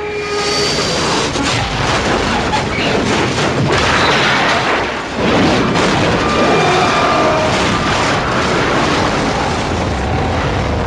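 Plane crash sound effect: a loud, long crashing and explosion rumble that breaks in suddenly over the jet engine's whine, dips briefly about five seconds in and then carries on.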